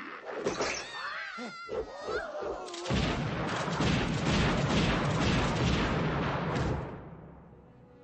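Film monster (deadite) sound effects. Shrill, wavering shrieks for about three seconds, then a loud, sustained crashing noise lasting about four seconds that dies away near the end.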